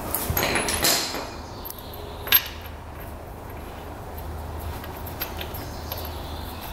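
Metal hand tools and parts clinking and knocking during engine work, busiest in the first second, with one sharp click about two seconds in and a few light ticks after; a low steady hum runs underneath.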